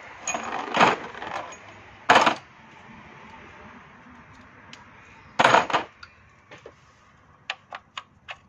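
Metal hand tools clinking and clattering in three loud bursts. Near the end comes a quick run of sharp clicks as a hex-bit tool works the throttle body's top Allen bolt loose.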